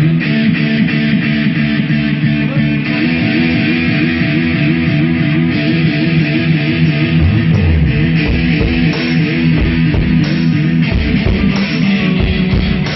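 Live rock band of electric guitar, bass guitar and drums playing an instrumental riff at a sound check. The guitar repeats the riff throughout, and heavy low beats join about halfway through.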